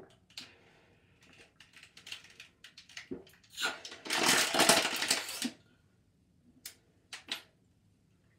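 A person drinking from a thin plastic water bottle: scattered small clicks and crinkles of the plastic, with a louder noisy rush lasting about two seconds midway.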